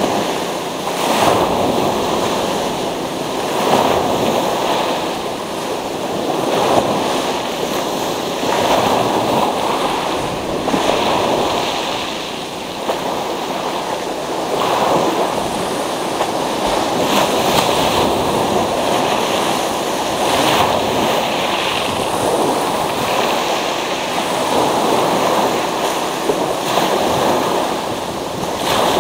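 Surf breaking on a pebble beach and washing back over the stones, surging and easing every few seconds, with brief sharp crackles among the pebbles.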